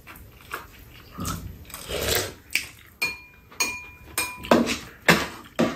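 Metal spoons clinking and scraping against bowls while eating: a string of sharp clicks, a few of which ring briefly around the middle.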